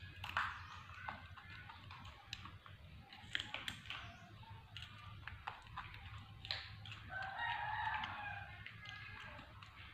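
Baby macaque biting and chewing a raw cucumber, with scattered crisp crunching clicks. About seven seconds in, a rooster crows once, the loudest sound here.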